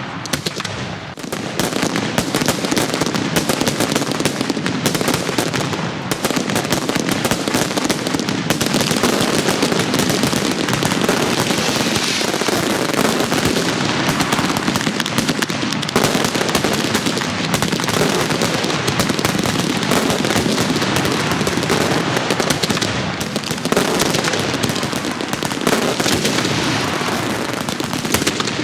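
Fireworks going off: a dense, continuous crackling and popping of many bursts overlapping, with a short lull about a second in.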